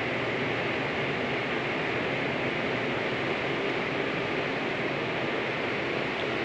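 A steady, even hiss with no single event standing out.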